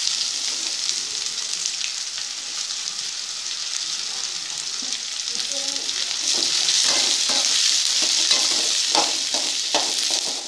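Sliced onions sizzling in hot oil in a metal pot, stirred with a spoon that clicks and scrapes against the metal. The sizzle grows louder and the stirring clicks come more often from about six seconds in.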